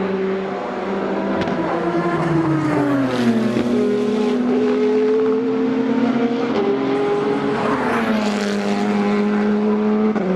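Several race car engines running hard at once, one car after another accelerating past. The pitch drops sharply at upshifts about three seconds in and again near eight seconds.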